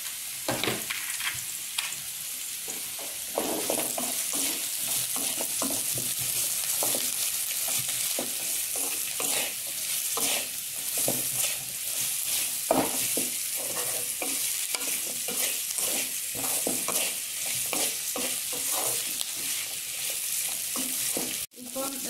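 Sliced onion, green beans and carrots sizzling in hot oil in a metal wok, sautéing, while a wooden spatula stirs and scrapes them against the pan in frequent short strokes. The sound drops out for an instant near the end.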